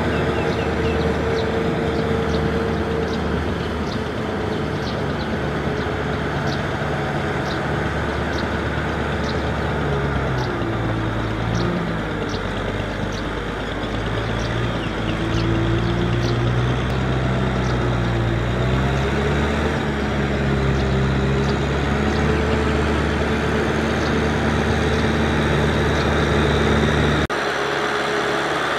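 Kubota M6040SU tractor's diesel engine running under load as it drags a rotary tiller through flooded paddy mud, its note wavering in pitch midway. A light, regular ticking, about two a second, sounds over the engine for much of the time, and the sound changes abruptly near the end.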